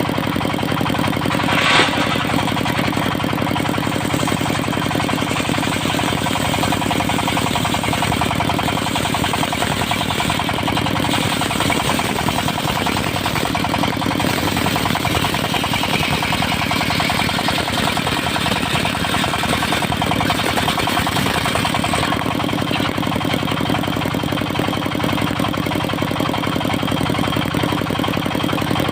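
Engine of a portable circular sawmill running steadily at a constant speed, with one short knock about two seconds in.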